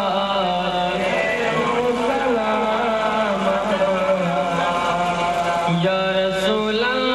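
A male voice chanting a devotional Urdu salat-o-salaam, with long held notes that slide from one pitch to the next.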